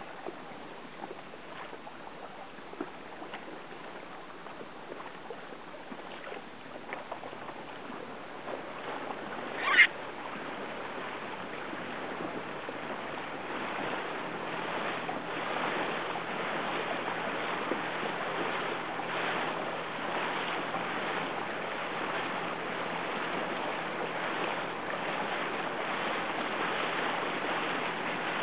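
Water rushing and wind around a boat under way, growing steadily louder from about a third of the way in. Near the middle there is one short, sharp high squeal, the loudest moment.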